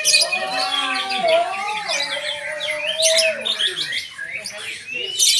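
White-rumped shamas (murai batu) singing in competition, a dense overlapping mix of chirps, whistles and gliding notes, with sharp loud calls at the start and near the end.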